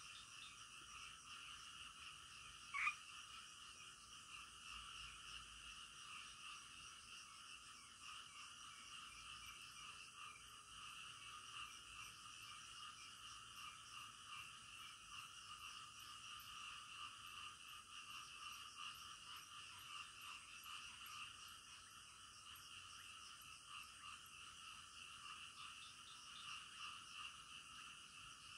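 Faint night chorus of many frogs calling together, a dense, steady, overlapping croaking, with one short, louder sharp sound about three seconds in.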